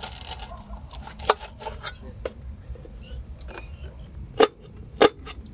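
Kitchen knife slicing a red onion on a metal pot lid: a series of sharp taps and clicks as the blade cuts through and strikes the lid, the two loudest near the end. Crickets chirp steadily throughout in a fast, even pulse.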